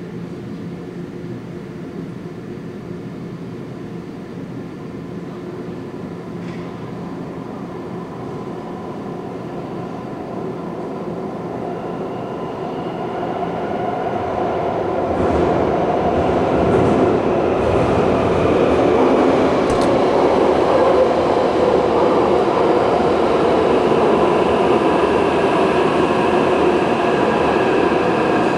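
Taipei Metro Songshan Line train arriving through the tunnel into the station: a rumble and rail noise that grow steadily louder over the first half and stay loud as the cars run in alongside the platform, with a faint high whine over the top.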